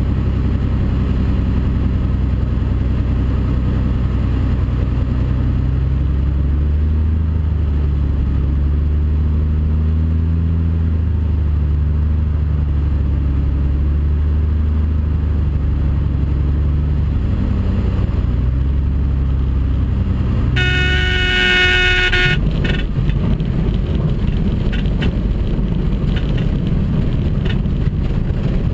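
Cessna L-19 Bird Dog's six-cylinder Continental O-470 engine and propeller running at low approach power, heard from the cockpit, its pitch shifting as the throttle is worked. About twenty seconds in, a steady horn tone sounds for a second and a half: the stall warning in the flare. Then comes a rough rumble with knocks as the wheels touch down and roll on grass.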